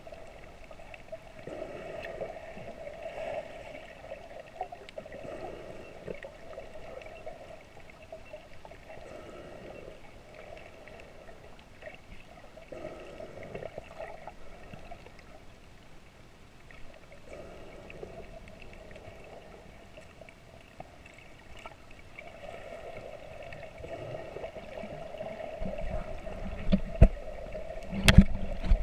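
Underwater sound through an action camera's waterproof housing: a steady, muffled hum with a faint whine. About three seconds from the end come louder thumps and sharp cracks of water splashing against the camera as it reaches the surface.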